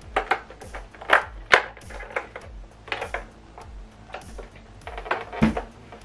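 Irregular plastic clicks and knocks as an optical (TOSLINK) cable plug is pushed and worked into a tight optical input on the back of a soundbar while its plastic casing is handled. The clicks come several a second, loudest about a second and a half in and again near the end.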